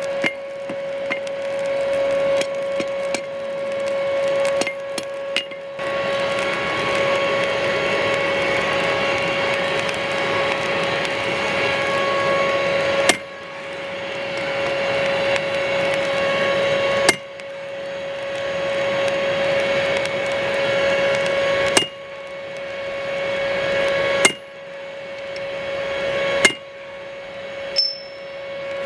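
A steady machine hum with one constant tone under a hissing rush, interrupted by about half a dozen sharp metallic clinks on the anvil from the middle onward. At each clink the rush drops away, then slowly swells again.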